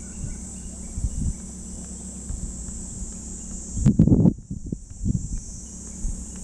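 Steady high-pitched buzz of summer insects in grassland. Gusts of wind rumble on the microphone, strongest about four seconds in.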